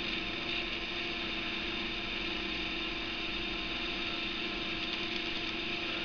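Steady background hum with hiss, unchanging, with no distinct events.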